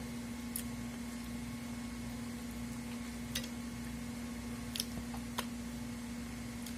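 Quiet eating by hand: a few faint clicks and squishes as fingers work moist fish, pirão and farinha on a plate and the food is chewed, over a steady low electrical hum.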